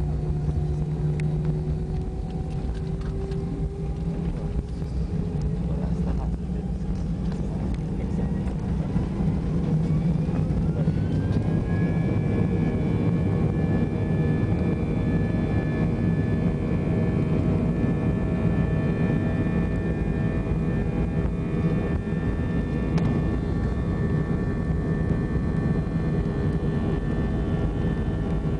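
Airbus A320 jet engines heard from inside the cabin. A steady low hum gives way, about ten to twelve seconds in, to a whine rising in pitch as the engines spool up to takeoff thrust. It then holds a steady higher whine over a constant drone during the takeoff roll.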